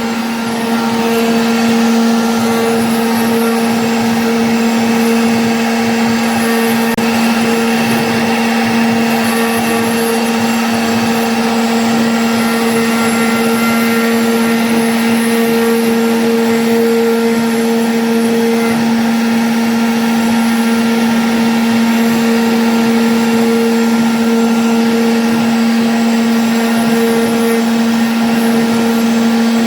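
CNC router spindle running steadily while cutting MDF: a continuous machine hum at one constant pitch over a steady hiss.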